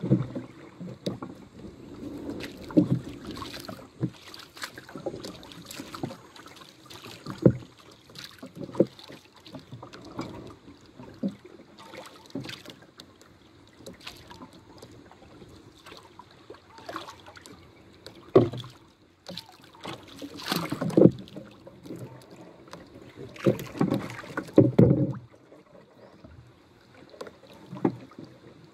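Small waves lapping and slapping against the hull and bamboo outrigger of a small boat, in irregular splashes and knocks, with a few louder slaps in the last third.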